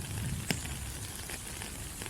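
Steady rain falling on rainforest leaves, an even hiss with scattered individual drops ticking, one louder drop about half a second in.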